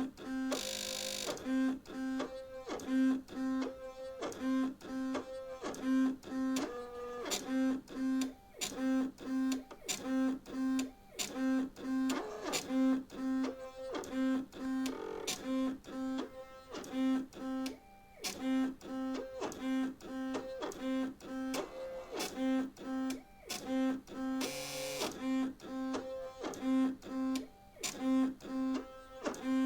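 Stepper motors of an old desktop CNC machine working through a solder-paste dispensing program: a rapid, regular series of short pitched whines, about two a second, as the head hops from pad to pad and dips its Z-axis, with sharp clicks between the moves.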